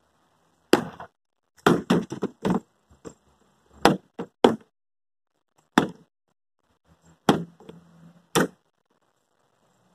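Baseball bats smashing into a toy basketball hoop: about a dozen sharp whacks at an irregular pace, with a quick run of blows in the first few seconds and single strikes after.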